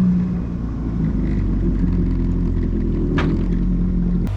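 Yamaha FX Cruiser HO WaveRunner's 1.8-litre four-cylinder four-stroke engine running steadily underway, a constant low drone.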